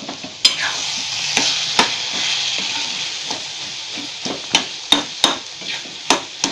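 Metal spoon stirring softened, juicy tomato chutney in an iron kadhai, knocking and scraping against the pan over a steady sizzle of the mixture cooking in oil. The knocks come faster in the second half.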